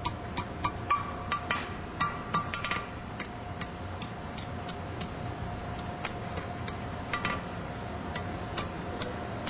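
Hammer blows on hot steel bar stock over an anvil's horn, about three a second, each with a short metallic ring, while a small scroll is bent in a thin bar. The blows are heavier in the first three seconds, then go on as lighter, evenly spaced taps.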